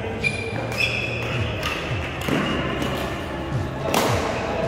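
Badminton doubles rally: sharp racket hits on the shuttlecock, with the loudest hit about four seconds in, amid shoes squeaking on the court floor and footfalls.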